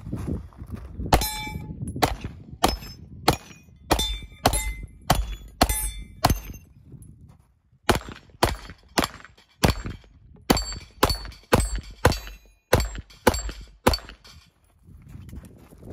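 Rapid pistol shots fired at steel plate targets, about two a second, with the steel ringing after hits. Two strings of about ten shots each, split by a pause of a second or so near the middle.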